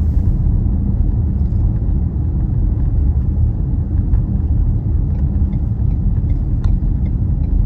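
Steady low road and engine rumble heard from inside a moving car's cabin, with a few light clicks and ticks, one sharper click near the end.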